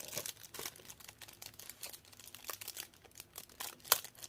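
Knife packaging being worked open by hand: soft crinkling and rustling with scattered light clicks and taps, and one sharper click about four seconds in.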